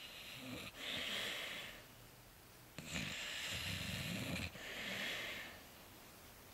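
Dog snoring in its sleep: slow airy breaths, with a louder, low snore about three seconds in.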